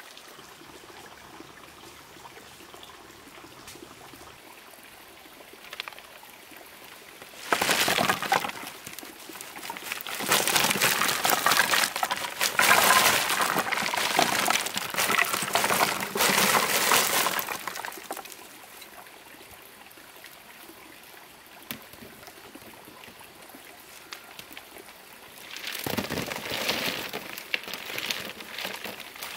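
Lumps of iron ore tipped from a woven bamboo basket, clattering and rattling onto a stack of split firewood. It comes in three bouts, a short one, then a long one, then another short one near the end.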